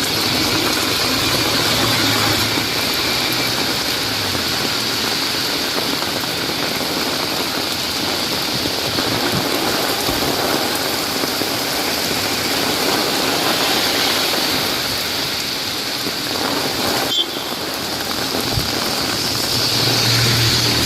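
Heavy rain falling steadily on an umbrella, with vehicles passing on the wet road; a low engine hum comes through near the start and again near the end.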